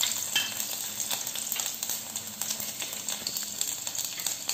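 Chopped ginger and garlic sizzling in hot oil in a non-stick frying pan: a steady hiss with many small spits and pops, easing off slightly.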